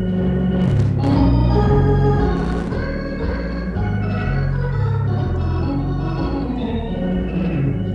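Hammond B3 organ playing jazz: held chords over a moving bass line, from an old live recording restored from cassette.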